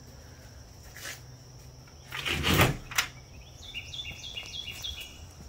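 A songbird gives a quick series of short, falling chirps near the end, over a steady high insect drone. The loudest sound is a brief rustling thump about two seconds in, followed by a sharp click.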